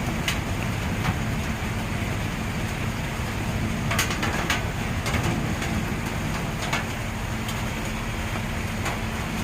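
Heavy rain falling steadily: a dense, even hiss with a low rumble underneath and a few sharp taps now and then.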